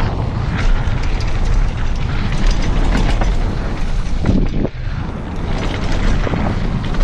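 Wind buffeting the GoPro's microphone over the rumble of mountain bike tyres on a dirt and gravel trail at speed, with scattered clicks and rattles from the bike. The noise dips briefly about four and a half seconds in.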